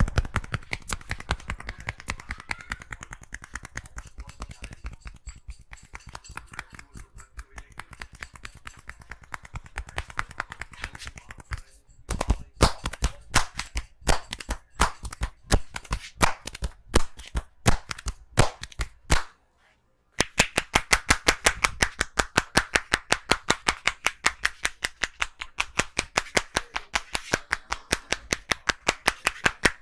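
Percussive massage: a barber's hands rapidly striking and slapping a client's head and shoulders in an even rhythm. The strikes turn louder and more widely spaced for several seconds in the middle, stop briefly, then resume in a very fast, loud run.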